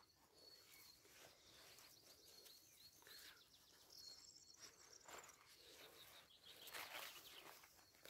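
Near silence: faint rustling of grass and soft plucking as a hand picks fairy ring mushrooms from the turf, a little louder about five seconds in and again near the end.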